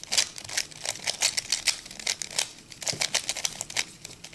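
A 3x3 Rubik's Cube being scrambled quickly by hand: rapid, irregular clicking of its plastic layers turning, about four or five clacks a second, stopping shortly before the end.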